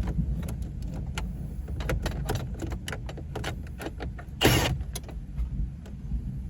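Small metallic clicks and taps of hand tools on metal parts inside a car, with a louder scraping rattle about halfway through, over a steady low rumble.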